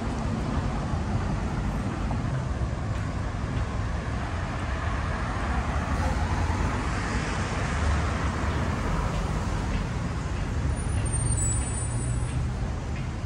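City street traffic: cars and buses passing with a steady road rumble, one vehicle swelling louder in the middle. A faint high squeal near the end.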